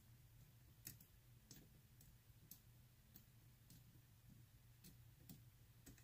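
About ten faint, unevenly spaced clicks from the number wheel of a Master Lock 647D combination padlock as it is turned by hand, with a shim pressed against it to feel for the wheel's gate.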